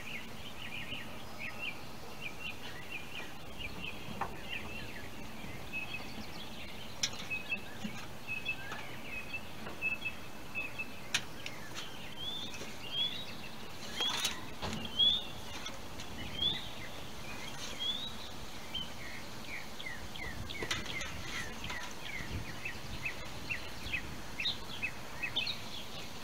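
Small birds chirping repeatedly over a steady outdoor background, with a few scattered knocks, the loudest about fourteen to fifteen seconds in.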